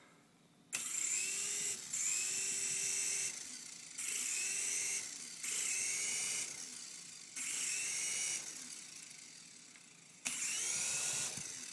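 Small electric motor whirring in six short bursts of about a second each, its whine rising and falling with each burst. It is the rotor motor of a toy helicopter being spun up and let go.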